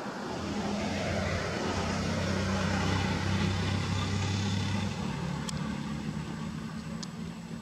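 A motor vehicle passing: its engine hum and road noise swell over the first few seconds, then fade after about five seconds.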